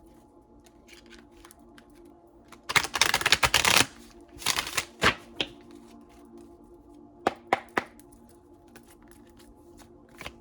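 A tarot deck being shuffled by hand: a loud riffle about three seconds in, a shorter one just after, then a few sharp card taps, over soft background music with steady held notes.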